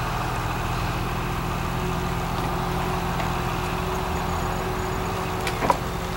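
Steady low mechanical hum, like an engine idling, with a single click near the end.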